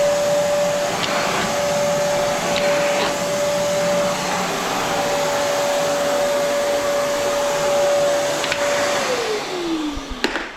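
Vacuum cleaner running with a steady whine, then switched off about nine seconds in, its motor winding down in a falling whine; a sharp click comes just before the end.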